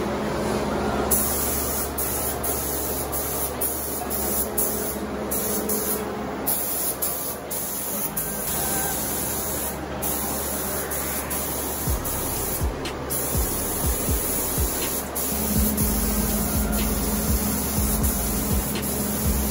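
Automotive spray gun spraying primer: a loud air hiss in passes, cutting out briefly each time the trigger is released.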